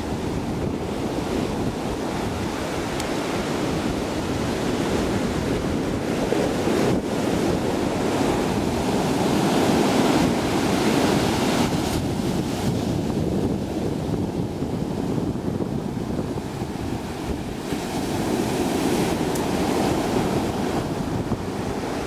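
Rough sea surf breaking on a beach: a continuous rush of waves, swelling louder about ten seconds in, with wind buffeting the microphone.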